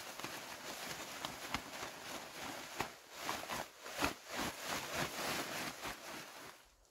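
A large fabric sheet rustling and crackling as it is shaken out and folded by hand, with many sharp crinkles; the rustling dies away near the end.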